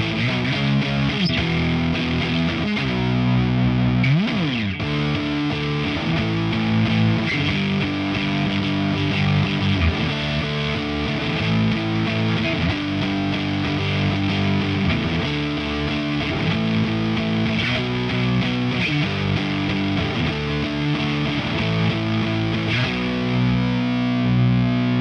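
1991 G&L USA SC-3 Deluxe electric guitar with its stock MFD pickups, played distorted through a Diezel VH4 amp head into a Marshall 4x12 cabinet with Celestion speakers. It plays chords and riffs, with a quick slide down and back up in pitch about four seconds in.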